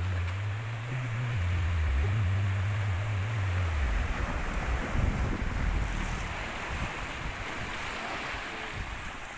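Wind buffeting the microphone over the wash of the sea, with a strong low rumble during the first four seconds.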